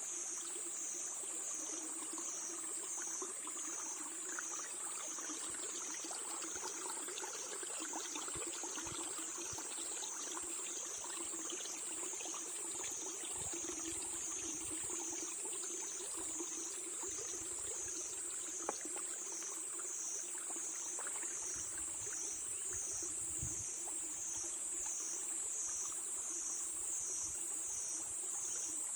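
A chorus of crickets chirping high and steady, swelling and fading about once a second, over the constant rush of a stream, with one small click about two-thirds in.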